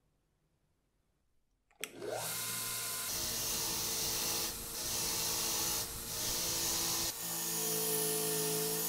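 Bench grinder with a wire brush wheel starting up about two seconds in and running, with a rusty screw held against the spinning wire wheel to brush the rust off: a steady motor sound under a scratchy hiss, with a few brief dips.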